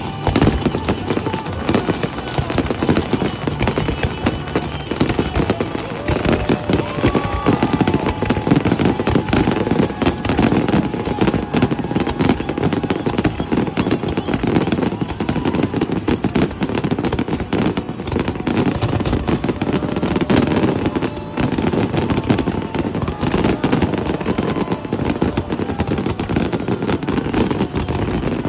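A continuous barrage of fireworks going off, dense rapid bangs and crackling with no let-up.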